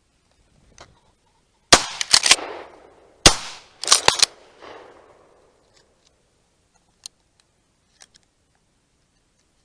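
Volley of shotgun blasts fired at a flushed pheasant: several sharp shots in quick succession over about two and a half seconds, in two clusters, each trailing off in echo.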